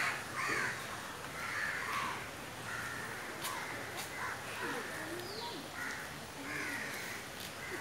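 Crows cawing: a string of short, harsh caws repeating every half second or so.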